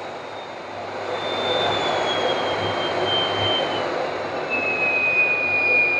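Miele Complete C3 canister vacuum running, its motor whine stepping down in pitch twice as the suction power is turned down toward the minimum setting with the minus button.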